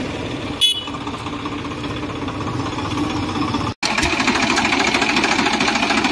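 Tractor diesel engine idling steadily, with a short sharp clack a little under a second in; after a brief break about two-thirds in, the engine is heard louder and closer, with a fast even pulse.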